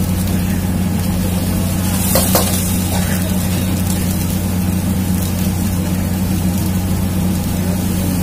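Oil sizzling in a wok over a gas burner, under a steady low hum. A few light knocks come about two seconds in.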